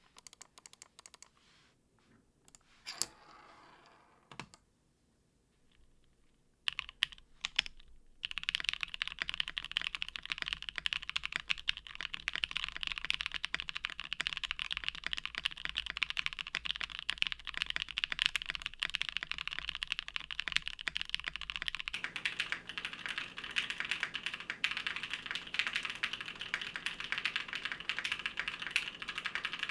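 Mechanical keyboard typing on a plateless, leaf-spring-mounted 7V with lubed Gateron Oil King switches on Kailh Black stems and GMK Shoko keycaps. A few scattered key clicks come first, then fast, continuous typing begins about eight seconds in.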